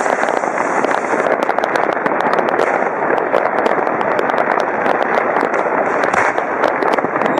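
Many fireworks and firecrackers going off at once: a dense, unbroken crackle and popping, with sharper single bangs scattered throughout.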